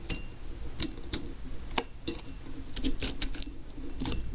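Stickers crinkling and crackling as they are handled and worked with a hand tool on a water bottle: irregular sharp clicks and rustles, several a second.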